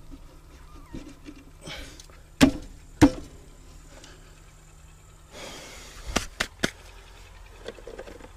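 Hand tools knocking on front-axle parts while the steering knuckle is fitted and its bolts started: two sharp knocks about half a second apart, then three quick lighter clicks near the end.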